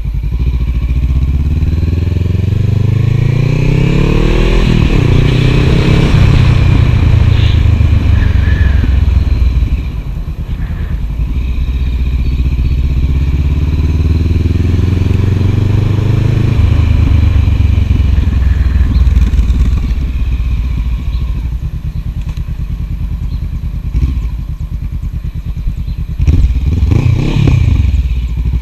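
2014 Honda CB500F parallel-twin engine running loud through a Delkevic carbon-fibre slip-on exhaust. Twice its pitch climbs steadily and then drops sharply as it shifts up. Near the end there is a quick rev that rises and falls.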